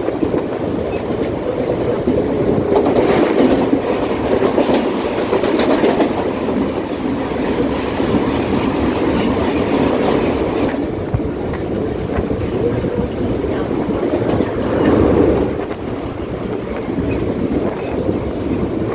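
Mumbai suburban electric local train running at speed, its wheels on the rails heard from aboard. A second local train passes close alongside, louder and brighter for several seconds and cutting off about eleven seconds in.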